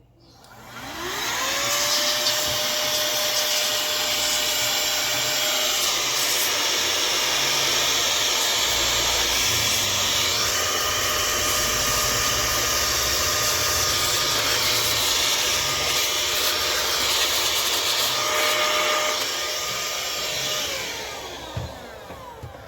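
Air blower spraying a steady, loud rush of air over laptop parts to clean off dust. Its whine rises as it spins up about a second in, holds, and winds down near the end.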